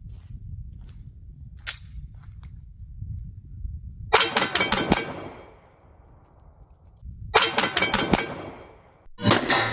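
Stoeger STR-9 9mm pistol fired rapidly at a steel gong: a quick string of about five shots with ringing after, then another string of about five shots some three seconds later.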